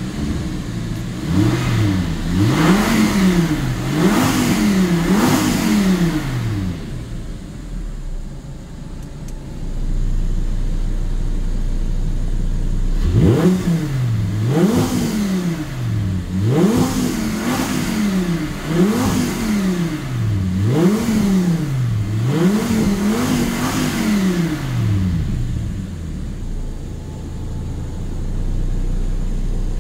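Audi R8's V10 engine, heard from the driver's seat, being revved while parked: two sets of quick throttle blips, each rev rising and falling in pitch, a few in the first set and about half a dozen in the second, with the engine settling back to a steady idle between and after them.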